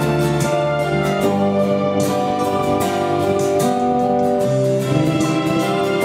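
Group performance of a slow ballad: acoustic guitars strumming under steadily held chords.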